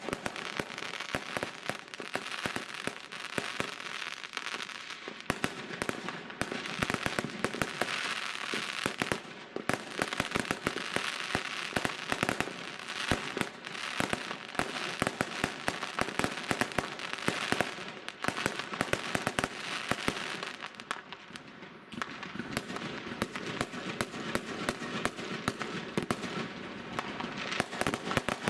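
Aerial fireworks bursting in quick succession: a steady barrage of bangs and crackling pops, easing off briefly about three-quarters of the way through.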